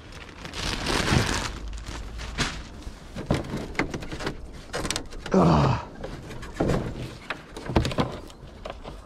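Plastic roof panel of a chicken coop being lifted off and handled, with scattered knocks, scrapes and clothing rustle. A short effortful grunt about halfway through.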